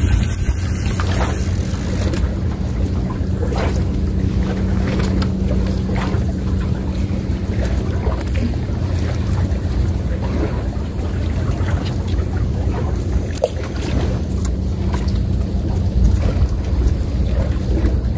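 Wind rumbling on the microphone by open water. A steady low drone lasts for about the first half, and faint scattered clicks and ticks come through.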